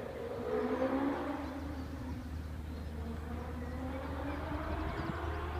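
The Empire Wraith hill-climb car's Suzuki GSX-R1000 inline-four motorcycle engine revving hard at a distance. Its note rises, dips about two seconds in as it changes gear, then climbs steadily again.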